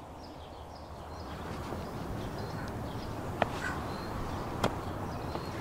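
A person getting up and moving about outdoors: a rustling that swells from about a second in, with two sharp snaps, over faint bird chirps.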